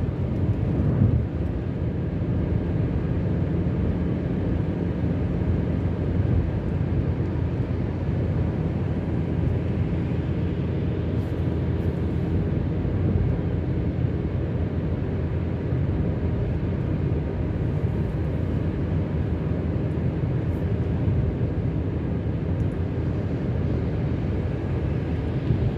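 Car driving steadily at freeway speed: a constant low rumble of engine and road noise.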